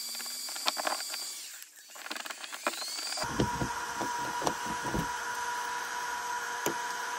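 Repeated clicks and scrapes of a key and lock mechanism on a frozen car door over a steady hiss, as the frozen lock is warmed and worked. About three seconds in, the hiss gives way abruptly to a steady hum, with the clicks continuing more sparsely.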